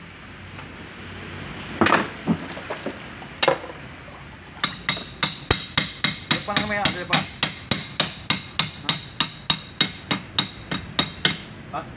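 Metal-on-metal hammer strikes on the trim-and-tilt bracket of a Mercury 75 hp outboard. Two single knocks come first, then a steady run of about twenty strikes, roughly three a second, each with a short metallic ring.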